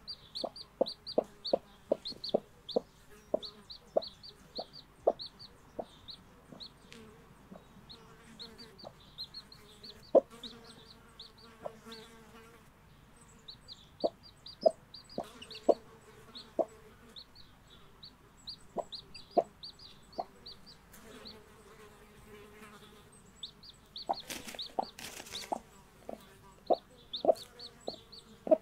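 Brahma mother hen clucking to her newly hatched chicks in runs of short, rapid clucks, while the chicks peep in short high chirps. A brief burst of noise comes near the end.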